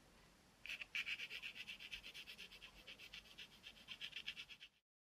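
Graphite pencil scratching on drawing paper in rapid, even back-and-forth shading strokes, several a second. The strokes start just under a second in and stop shortly before the end.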